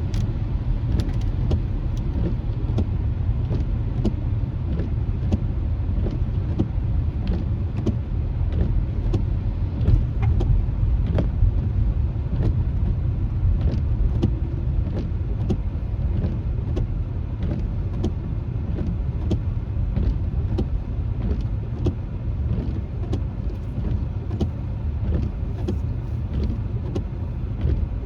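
Steady low rumble of a car's road and tyre noise heard from inside the cabin on a wet road, with irregular sharp ticks, a few a second, running through it.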